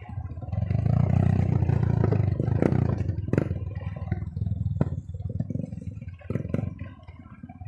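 Small 150 cc single-cylinder trail motorcycle engine pulling hard, loudest in the first few seconds and then easing off. Several sharp knocks and clatter from the bike over rough ground are mixed in.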